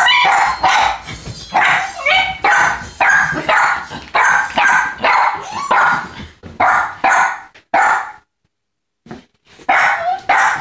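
Small terrier-type dogs barking excitedly in a fast, steady run of sharp barks, about three every two seconds: excited barking at a familiar person arriving. The sound drops out completely for about a second near the end, then the barking starts again.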